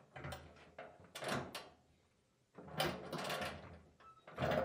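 Short clunks and scrapes of a steel gas tank being shifted against a truck's frame rails, in about four separate bursts.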